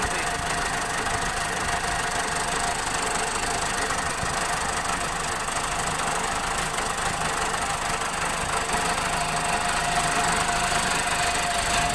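Freshly overhauled Case 480 backhoe loader's direct-injection diesel engine running steadily with an even diesel clatter.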